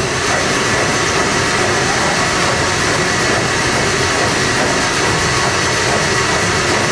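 Liberty Ship's triple-expansion reciprocating steam engine running in its engine room: a loud, steady mechanical din with a faint high whine over it.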